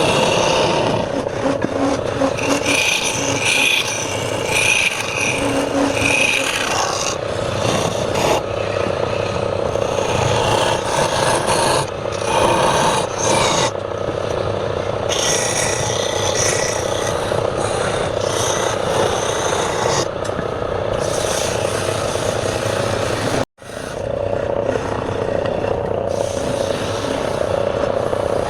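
Wood lathe running while a tool scrapes against the spinning wood, a steady hum under rasping that changes as the tool moves. About 23 seconds in, the sound drops out for a moment, then picks up again.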